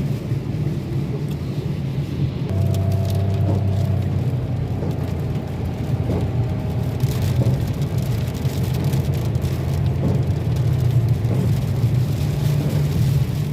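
A car driving on the road: a steady low rumble of engine and tyres.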